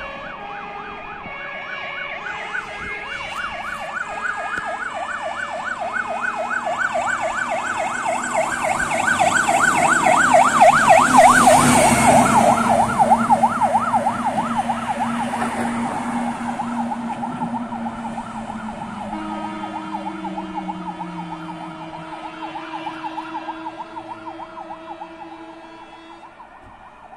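Fire engines on an emergency run with sirens sounding as they pass: first a stepped two-tone siren, then a fast rising-and-falling yelp that is loudest about halfway through as a truck goes by, fading toward the end, with the trucks' engines running under it.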